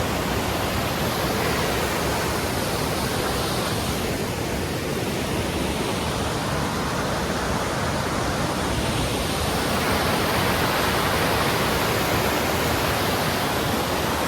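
Steady, loud rush of fast-flowing creek water.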